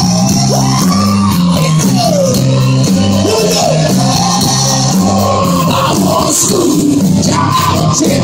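Live hard rock band playing loud, heard from the crowd: electric guitars and drums over a stepping bass line.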